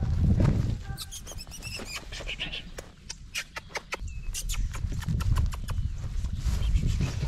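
Shih Tzu puppies scuffling in grass right by the microphone: rapid clicks and rustles, with low rumbles on the microphone. A few short high chirps come between one and two and a half seconds in.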